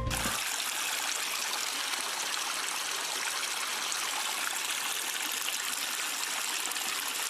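Steady running water: an even, unbroken hiss with no splashes or drips standing out.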